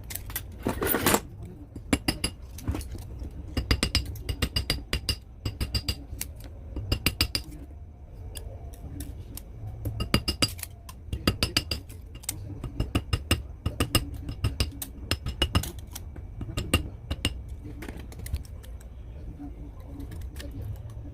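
Clusters of quick, sharp clinks and clicks from small hard parts being handled and knocked together, some with a faint high ringing, over a low steady hum.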